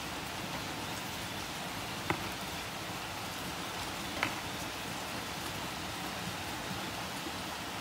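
Steady rain-like hiss, with two light clicks about two seconds apart.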